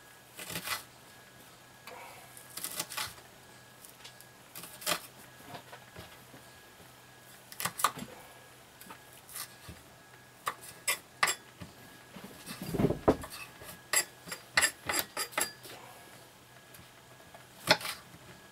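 Kitchen knife chopping an onion finely on a wooden cutting board: irregular sharp knocks of the blade on the board, coming in a quicker run in the second half, with one duller thump among them.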